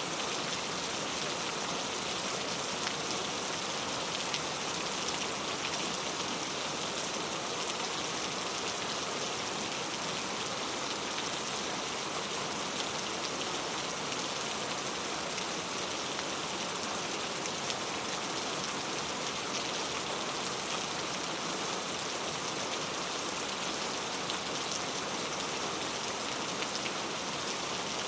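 Steady rain falling into a puddle, a dense, even hiss of many drops striking water.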